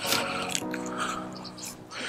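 Background music with held, sustained chords, with a few brief scraping or handling noises over it, the loudest right at the start.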